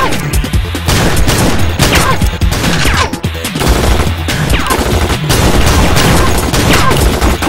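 Rapid movie-style gunfire from pistols and a submachine gun, shot after shot, with short falling whines every second or so, over background music with a steady low beat.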